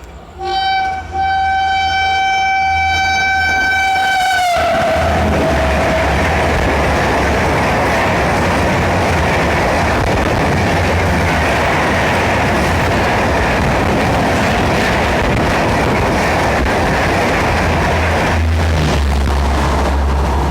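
An Indian Railways express locomotive's horn gives a short toot, then one long blast whose pitch drops about four seconds in as the locomotive passes at speed. The train then runs through in a loud, steady rumble of wheels on rail.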